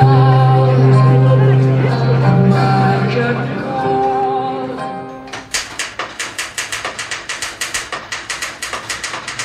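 Music: a held melody with wavering notes over a steady low bass note, then about five and a half seconds in it turns to a fast, even pulse of sharp strokes, about six a second.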